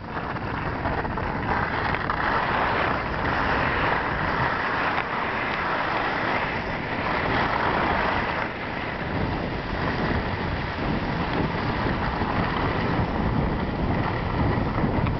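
Steady rushing noise that swells and eases a little, with a slight dip about two-thirds of the way through.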